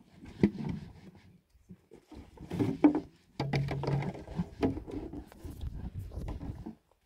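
Plastic water bottles and a jerrycan being handled, with irregular knocks, clunks and rustling, and a brief low steady hum about halfway through. The sound cuts off abruptly shortly before the end.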